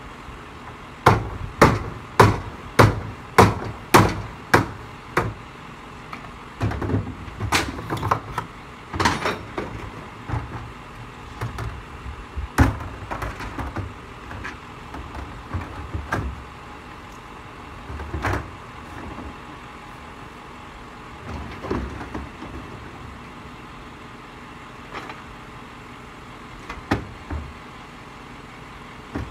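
Hard objects knocking and clacking: a run of about seven sharp, evenly spaced strikes over the first few seconds, then irregular, scattered knocks that grow fainter and sparser.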